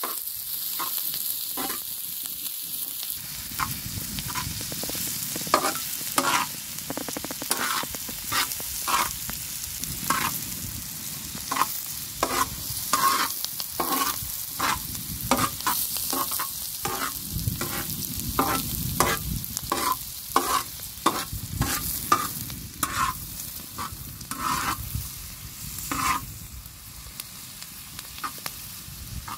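Chopped vegetables sizzling on a large iron griddle over a wood fire while a metal slotted skimmer stirs them, scraping and clinking against the pan about once or twice a second. The strokes thin out near the end, leaving the sizzle.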